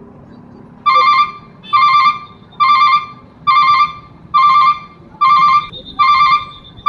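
Railway level-crossing warning bell starting about a second in: an electronic trilling ring of one pitch, repeated about seven times, a little faster than once a second, signalling that a train is approaching and the gates are closing. A low rumble of idling traffic runs underneath.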